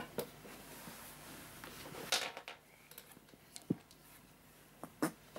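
Handling noise from small plastic toy figure pieces: scattered light clicks and knocks, with a short rustle about two seconds in.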